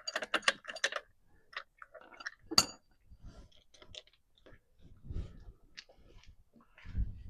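Metal hand tools and lug nuts being handled while a wheel is taken off: a quick run of clicks at the start, a sharp ringing metal clink about two and a half seconds in, then scattered small clicks and a few dull thumps near the end.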